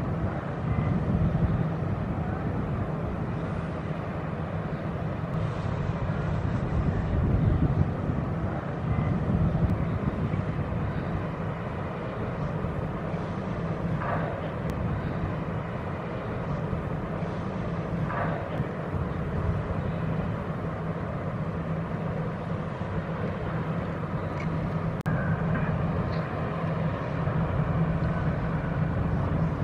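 Steady low engine rumble with a hum from a passing RoRo cargo ship.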